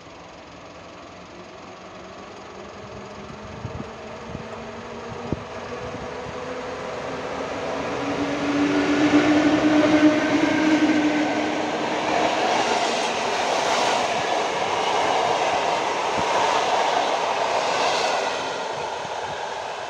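EP07 electric locomotive hauling a passenger train, approaching and passing close by: a rumble that grows over the first several seconds, a low hum as the locomotive goes past about halfway through, then the steady rush of the coaches' wheels on the rails, easing slightly near the end.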